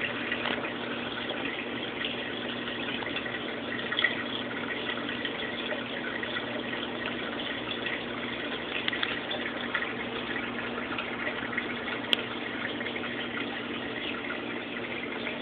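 Saltwater reef aquarium's water circulation running: a steady rush and trickle of moving water with a low, even pump hum underneath.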